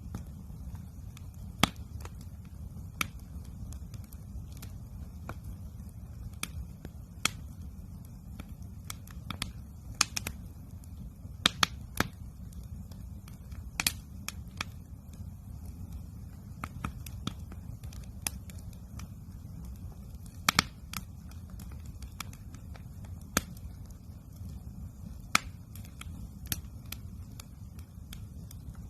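Wood campfire crackling, with irregular sharp pops scattered through, a few of them louder, over a steady low rumble.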